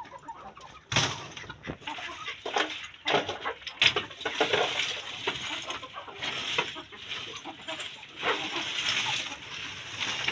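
Loose stones and gravel clattering and knocking as they are picked up by hand off a dirt floor and gathered into a woven sack, with rustling at times. Fowl cluck now and then.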